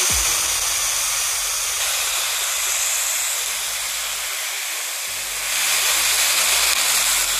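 Steady hiss of steam and sizzling as mandarin segments cook down between the hot plates of a waffle iron. The hiss eases a little in the middle and swells again about five and a half seconds in.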